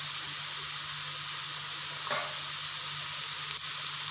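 Goat blood fry with onion and green chilli sizzling steadily in oil in a kadai, with a faint knock about halfway and a sharp tick near the end.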